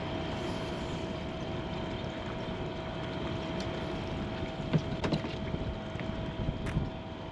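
Steady hum and hiss of a fishing boat at rest on the water, with a few faint steady tones and some soft clicks and knocks about five seconds in.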